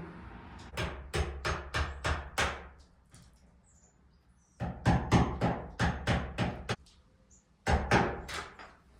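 A hammer tapping in three runs of quick blows, about three to four a second, with short pauses between the runs, while a deadbolt is being fitted into a wooden shed door.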